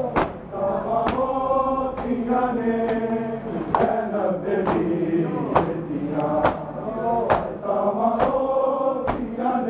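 A group of men chanting a noha in unison, with the sharp slap of hands striking bare chests together in time, about one strike a second: matam, ritual chest-beating in mourning.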